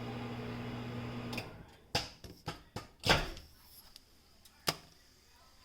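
A Whirlpool microwave oven running with a steady electrical hum, which shuts off about a second and a half in. Several sharp, scattered pops follow over the next few seconds, the loudest about three seconds in: the last kernels popping in the bag.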